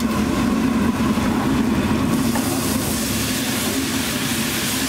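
Liquid ladled onto a large hot street-stall griddle, hissing into steam, with the hiss swelling about two seconds in. A steady low drone runs underneath.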